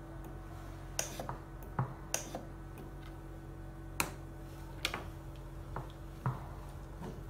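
LG102P portable oxygen concentrator running in pulse-flow mode with a steady low hum, overlaid by irregular sharp clicks and ticks.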